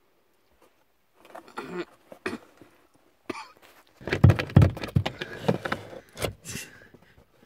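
Clear plastic clamshell food box being handled: crackling plastic and sharp knocks, a few faint ones at first, then a dense, louder run of knocks and rustling from about four seconds in.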